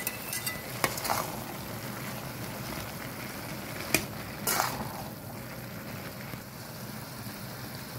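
Chicken and vegetable samosa filling sizzling in a metal pan while a spatula stirs it, with a few sharp scrapes and taps of the spatula against the pan, the sharpest about four seconds in.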